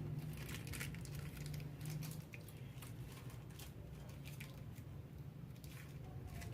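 Plastic wrapping crinkling in short crackles, on and off, as a resin figure's nameplate is unwrapped by hand, over a steady low hum.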